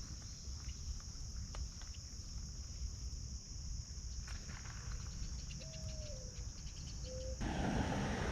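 Steady high-pitched chorus of crickets or similar insects, with a few faint clicks and a low rumble. About seven seconds in, a sudden rush of wind noise on the microphone comes in over it.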